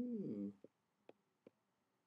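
A man's short low hum with falling pitch, then a few faint clicks of a pen or mouse writing on a computer whiteboard.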